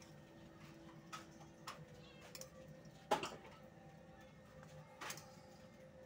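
A few faint, scattered clinks of mussel shells and a spoon against a ceramic bowl as the mussels in chilli oil are moved and stirred, the sharpest clink about three seconds in.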